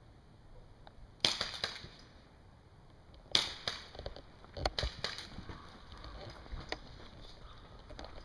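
Airsoft gunfire: two loud sharp snaps about two seconds apart, each followed by a few quicker clicks, then a scatter of lighter clicks and knocks.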